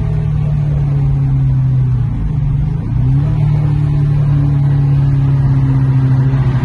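Supercharged V8 car engine running steadily. Its pitch dips briefly about two to three seconds in, then holds a little higher.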